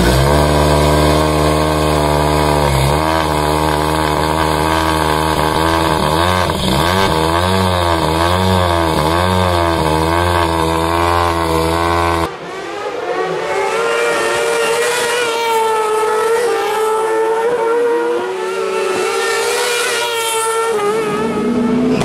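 Car engine revving, its pitch swinging up and down again and again. About halfway through, the sound cuts abruptly to a higher engine note that also rises and falls.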